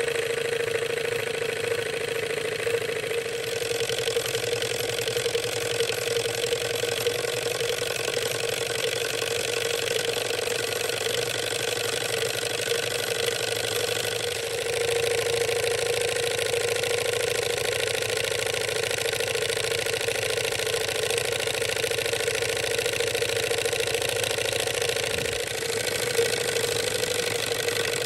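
Bing 9635/1 toy hot air engine of about 1899 running steadily, a continuous mechanical whirring with a steady hum.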